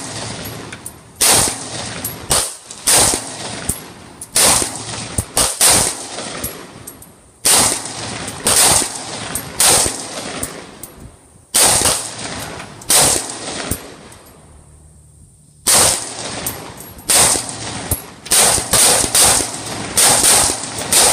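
SIG 516 short-barrelled AR pistol fired in a long string of single shots, each a sharp crack with a short ringing tail, about one every half second to a second. There is a pause of about a second and a half some two-thirds of the way through, and the shots come quicker near the end.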